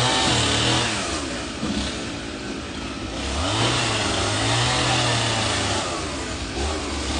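Chainsaw engine revved up and let back down to idle, in repeated bursts as the saw cuts. The throttle opens at the start, again about three and a half seconds in, and once more near the end.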